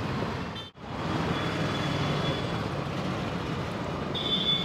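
Street traffic noise from passing vehicles, steady throughout. It drops out briefly just under a second in, and near the end a short high-pitched beep sounds.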